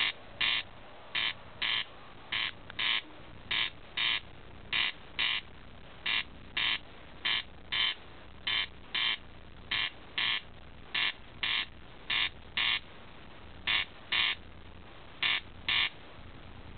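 Corncrake calling: its two-part rasping call, crex-crex, repeated steadily about every second and a quarter.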